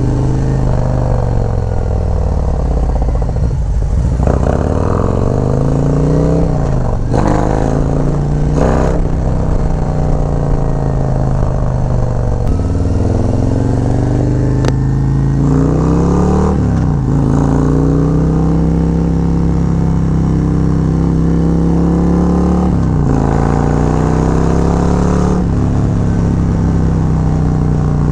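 Harley-Davidson Road Glide's Milwaukee-Eight V-twin, with a Khrome Werks Dominator 2-into-1 exhaust and a Fueling Reaper 465 cam, accelerating on the road. The raspy exhaust note climbs in pitch through each gear and drops back at each shift, about six times.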